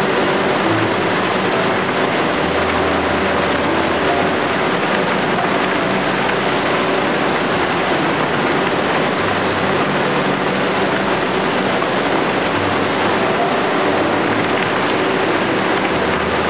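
Engine and pumping machinery of a tin-dredging suction boat running steadily: a constant mechanical drone with a dense rushing noise over it.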